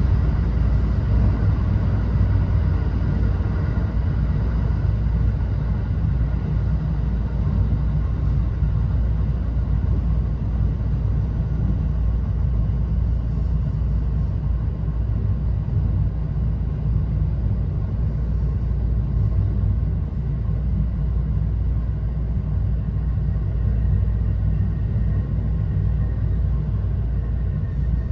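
Cabin running noise of a JR West 321 series electric train's trailer car, a car without traction motors: a steady low rumble of wheels on rail.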